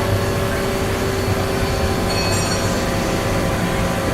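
Mazak QT 250 CNC turning center running a light turning cut: a steady machine hum with several steady tones from the spindle and drives. A brief high-pitched ringing comes about two seconds in.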